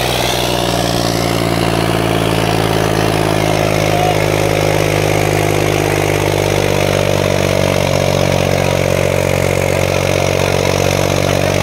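Farmtrac 60's three-cylinder diesel engine running steadily under heavy load as the tractor drags a pair of harrows through soil.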